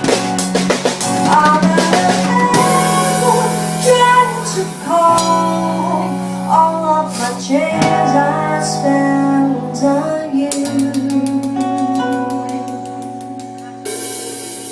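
Pop song outro with drums, guitar and a melodic line, fading out over the last few seconds.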